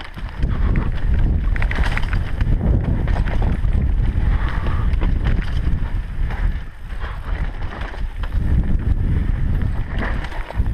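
Mountain bike rattling and clattering down a rough dirt and stone singletrack, with many short knocks from the bike over the ground. Heavy wind rumble sits on the action-camera microphone.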